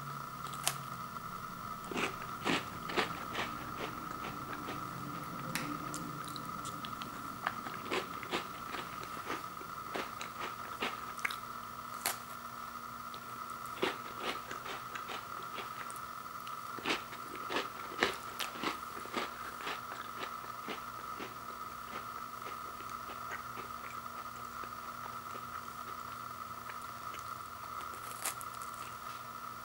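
A person biting and chewing crunchy peanut butter sandwich crackers: irregular sharp crunches, thinning out over the last several seconds, over a steady faint hum.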